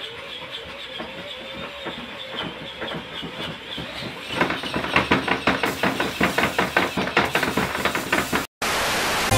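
A homemade baby-burping machine's electric motor whines while its arm swings a rubber hand against a baby doll's back. About four seconds in, the blows speed up into a rapid, even clatter of slaps, which cuts off abruptly near the end.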